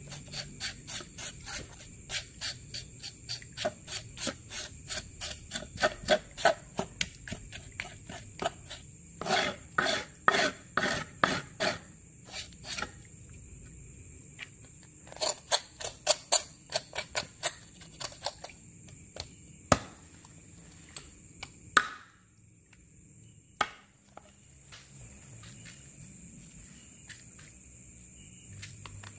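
A kitchen knife scraping along a catfish's skin on a wooden cutting board, in quick runs of rasping strokes about three or four a second. The strokes stop after about eighteen seconds, and a few single knocks follow.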